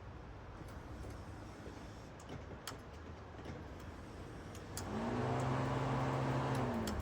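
A few faint clicks, then, about five seconds in, a small electric motor on a 2002 Subaru Legacy hums steadily for about two seconds and winds down.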